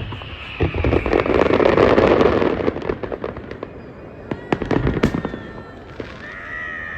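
New Year's fireworks going off in a dense barrage of bangs and crackles, loudest between about one and three seconds in. A falling whistle sounds at the start, and another whistle comes in near the end.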